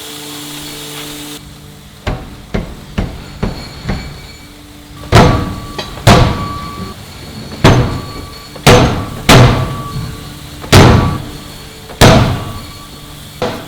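Heavy forging blows on metal: a few light knocks, then about eight loud strikes at uneven intervals, each ringing briefly before dying away.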